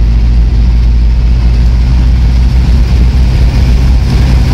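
Vehicle engine running with a steady deep drone, heard from inside the cab while driving along a dirt field track.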